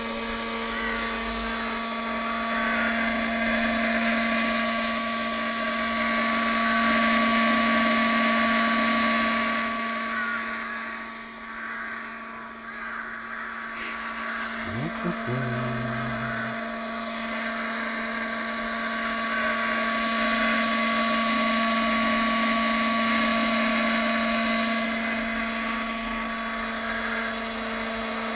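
Small motor-driven pump running steadily, sucking automatic transmission fluid out of the gearbox, with a constant hum. It runs a little quieter around the middle.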